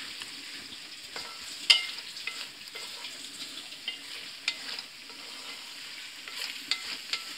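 Red kidney bean masala sizzling and frying in a steel karahi while a wooden spatula stirs and scrapes it, with scattered knocks of the spatula against the pan, the sharpest one about a second and a half in.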